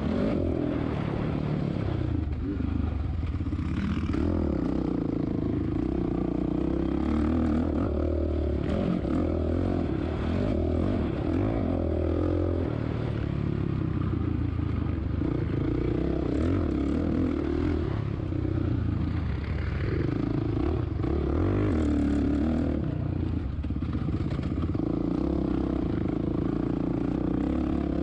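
2007 Suzuki RM-Z450 motocross bike's single-cylinder four-stroke engine at race pace, revving up and easing off repeatedly with throttle and gear changes. Heard from the rider's own position on the bike.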